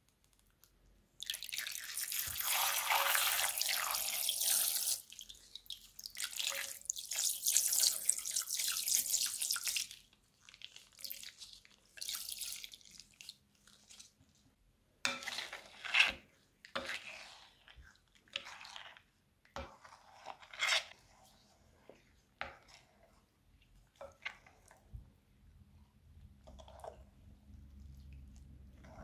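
Liquid poured from a piping bag into a bowl of glue, splashing steadily for about four seconds, then again for about four seconds. After that come irregular wet squelches and clicks as the mixture is stirred into slime.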